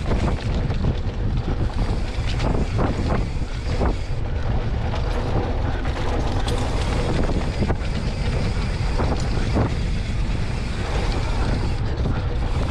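Wind buffeting the microphone while riding a Polygon Siskiu T8 mountain bike on a dirt singletrack, with tyres rolling over the ground and scattered knocks and rattles from the bike over bumps.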